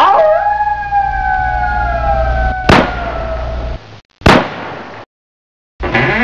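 A long wailing tone sliding slowly downward, cut by two sharp bangs about a second and a half apart; after a brief silence, a wavering wail rises and falls near the end.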